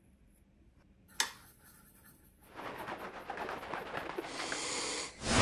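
A paintbrush stirring beads in paint in a metal muffin-tin cup, heard as a scraping rustle that starts about halfway through and grows louder. There is a sharp click about a second in and a low thump near the end.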